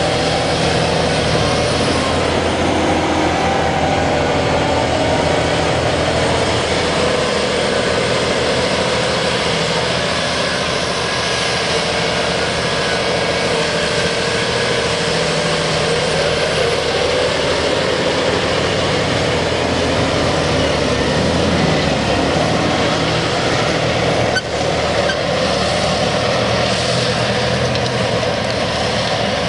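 Claas Xerion 4200 Saddle Trac's diesel engine working steadily under load as the tractor pulls a Horsch Tiger cultivator through the soil, with a brief dip in the sound about three-quarters of the way through.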